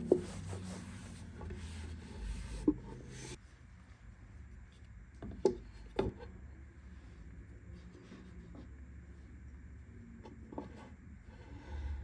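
Rubbing and handling noises with five sharp clicks or knocks spread through it; a background rumble drops away a little over three seconds in.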